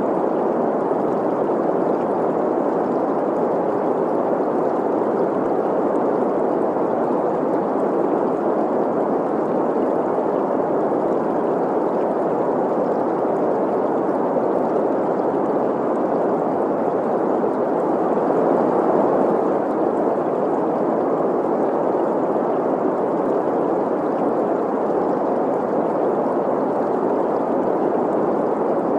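Steady green noise, an even hiss centred in the middle pitches with little deep rumble or high treble, blended with the sound of a flowing stream.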